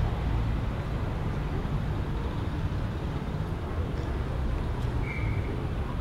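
Steady low rumble of a train that has just run through the station, heard under the station's general background. A short, high whistle sounds about five seconds in.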